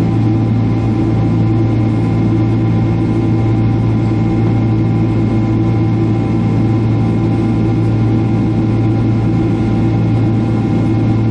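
Boeing 767 jet engine heard inside the passenger cabin while the airliner climbs after takeoff. It is a loud, steady drone: a strong low hum with several fainter, steady higher tones over a rushing noise.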